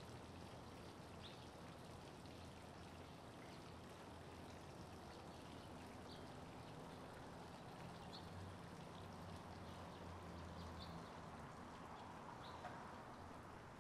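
Faint quiet outdoor ambience: a steady low hum under a soft hiss, with short high bird chirps every second or two.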